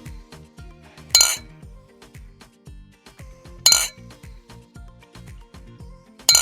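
Glass clinking three times, about two and a half seconds apart, like glass bottles knocking together, over background music with a steady beat. It is the sound of bottles stored in a fridge clinking, which may just be them reacting to the fridge's vibration.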